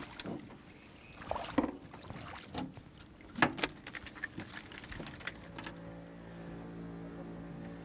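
Scattered knocks and rattles on an aluminium boat as a landed walleye is swung aboard, the two loudest about three and a half seconds in. From about five and a half seconds a boat motor is heard running steadily.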